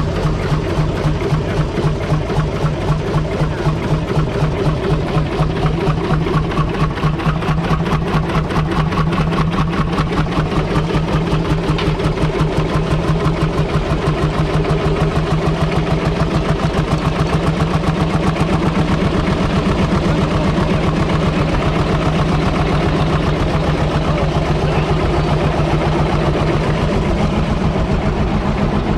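A 1933 Marshall S Type's 4.9-litre single-cylinder diesel engine idling steadily, each firing stroke heard as an even, regular beat.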